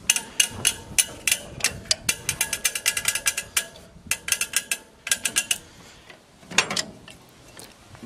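The hand-turned drive and picker mechanism of a 1918 John Deere Hoover potato planter clicking and ratcheting as the spring-loaded picker arms and needles come around. Rapid runs of sharp metal clicks give way to a few scattered clicks, with one louder clunk partway through.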